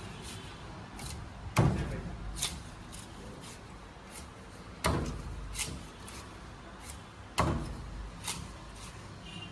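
Knife chopping through a large seer fish into steaks on a cutting board: three loud chops about three seconds apart, with lighter knocks between.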